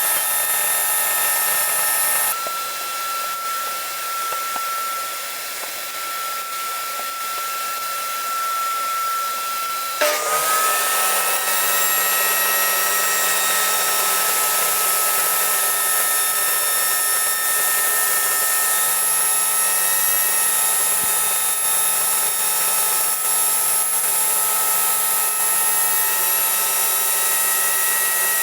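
Electric power tool motor whining steadily. About ten seconds in a motor starts up with a short rising whine and runs at steady speed, then winds down with a falling pitch near the end.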